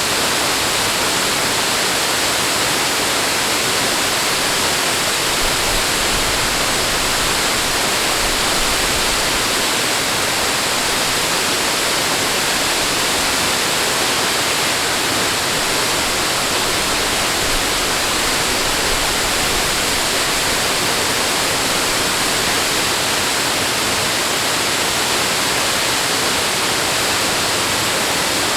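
Steady, unbroken rushing water, a dense even noise with no distinct splashes or breaks.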